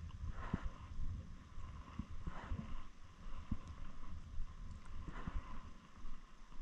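Wind rumbling on the camera microphone, with a few brief rubbing or brushing sounds from a hand right at the camera.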